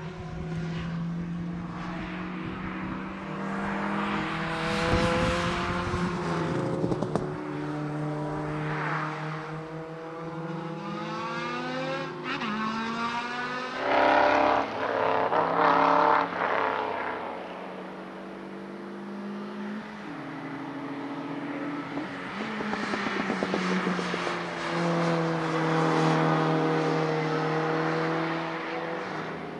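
Race car engines revving hard and dropping back through gear changes as cars lap the circuit, several heard at once. The loudest moment is a close pass about halfway through.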